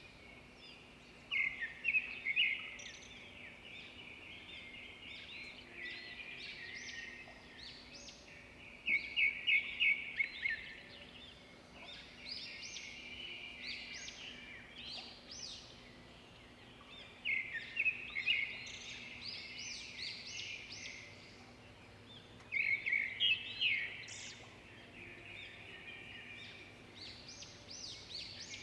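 Small songbirds chirping and twittering, with louder bouts of rapid repeated chirps every several seconds.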